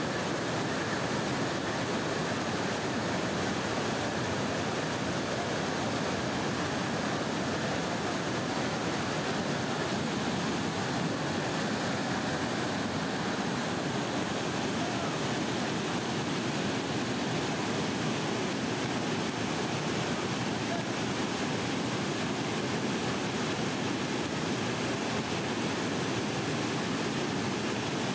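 Rain-swollen mountain stream rushing and cascading over rocks in flood, a steady, unbroken sound of churning white water.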